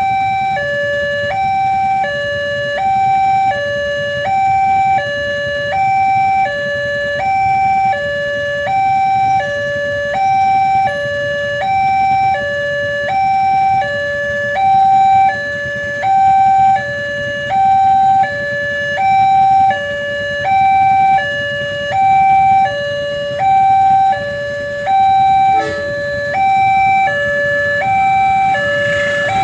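Railway level crossing warning alarm sounding a continuous two-tone hi-lo electronic tone, alternating high and low notes about every three-quarters of a second, signalling that a train is approaching and the barrier is down.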